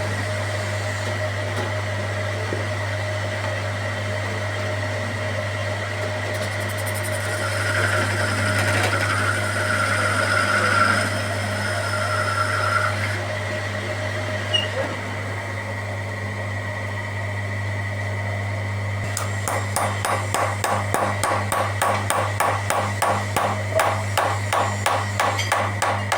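Rapid, even hammer blows on metal, about three a second, beginning about two-thirds of the way in, over a steady machine hum that runs throughout.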